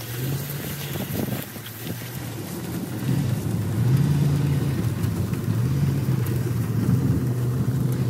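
Pickup truck engine running, its pitch rising and easing off several times as it moves; it gets louder about three seconds in.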